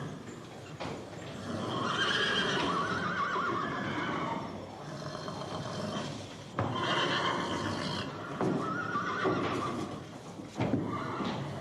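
Horse neighing: two long, wavering whinnies, the first starting about a second and a half in and the second about six and a half seconds in, with shorter calls and a few sharp knocks after.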